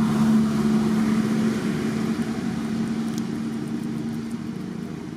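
A motor engine running steadily at a low, even pitch, slowly fading.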